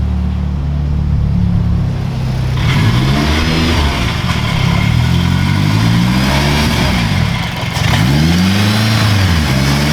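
Honda S2000 four-cylinder engine running through a titanium AMUSE R1000 exhaust: it idles steadily, then from about two and a half seconds in it is revved again and again, the pitch rising and falling with each blip of the throttle.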